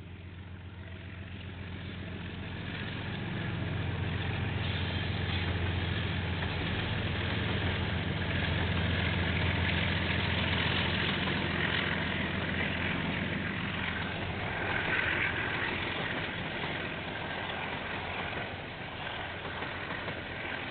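KiwiRail diesel locomotives hauling a container freight train past, heard through a security camera's microphone. The engines' steady low drone builds over the first few seconds, then mixes with the rolling rush of wheels on rail. The drone eases off near the end as the wagons go by.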